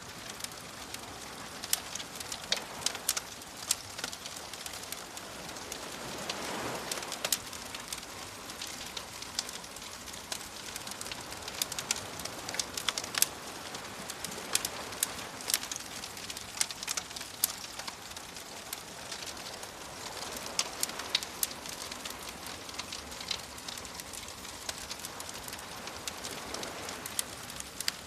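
Campfire crackling and popping with frequent sharp snaps, over soft waves washing in; one swell rises about a quarter of the way in, and others come later and near the end.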